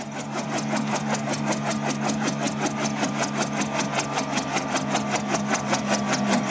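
Eurocopter EC135 twin-turbine helicopter running: a steady engine hum with an even, fast chopping beat of about six or seven pulses a second.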